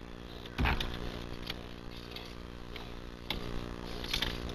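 Boat's outboard motor running steadily at low speed, with a loud thump about half a second in and a few lighter knocks later.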